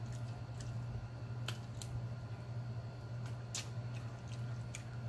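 Mouth sounds of eating chicken wings: chewing and lip-smacking heard as about a dozen short, sharp, wet clicks at irregular intervals, over a steady low hum.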